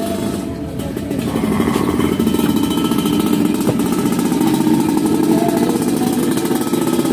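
A small engine running steadily close by, a dense even rumble with rapid pulsing; a single click about halfway through.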